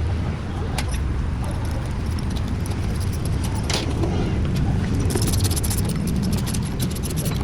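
Steady low mechanical rumble, like an engine or passing traffic, with a few sharp clicks, then a rapid metallic rattling from about five seconds in.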